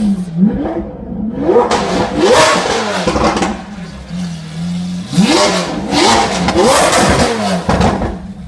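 Lamborghini Aventador SV's V12 engine blipped from idle in two bursts of several quick revs, with exhaust crackling between the revs.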